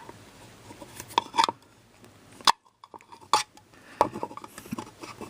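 Side cutters clicking and scraping as they pick at gummy epoxy in a hole in a speaker box: a scattered series of sharp, irregular clicks and clinks.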